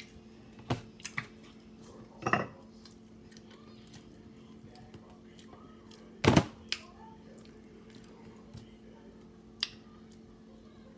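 Scattered sharp clicks and knocks of dishes and utensils handled while eating, the loudest about six seconds in, over a steady low hum.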